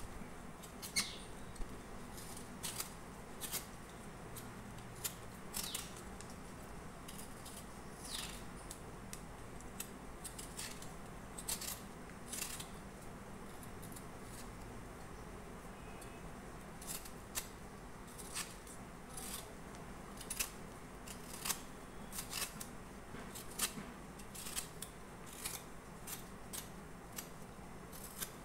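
A hand vegetable peeler scraping strips of skin off a raw green mango in short, irregular strokes.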